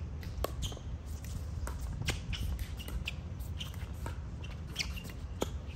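Pickleball play on a court: scattered sharp taps of paddles and a bouncing ball at irregular spacing, with shoe scuffs and brief squeaks, over a steady low rumble.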